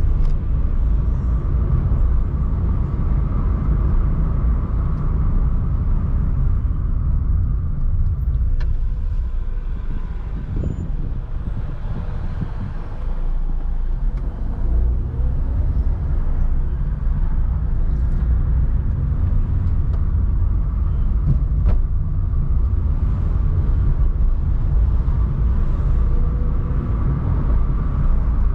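A car driving through town streets, with a steady low rumble of engine and road noise. The sound eases off for a few seconds near the middle, then builds again with a rising engine note as the car picks up speed.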